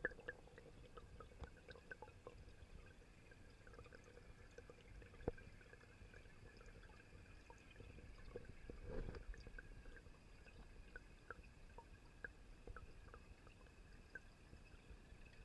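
Near silence, with faint scattered clicks, one a little sharper about five seconds in, and a brief soft swell of noise about nine seconds in.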